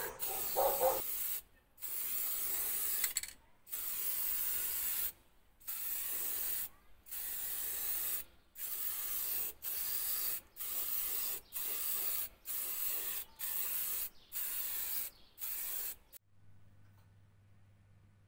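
Aerosol spray-paint can hissing in a series of about a dozen short bursts with brief pauses between them, the bursts getting shorter toward the end; the spraying stops about two seconds before the end.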